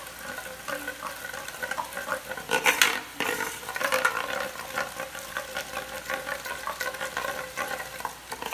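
Drops of gram-flour batter falling through a perforated metal ladle into hot oil, the oil sizzling steadily as the boondi fry, with a few scrapes and taps of the batter being worked across the ladle, loudest about two and a half seconds in.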